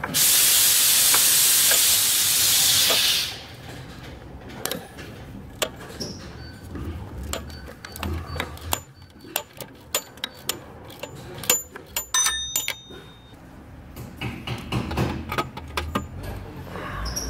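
A loud hiss for about three seconds, then scattered light metallic clicks and ticks of a socket wrench working on the alternator mounting bolts, with a brief ringing clink about twelve seconds in.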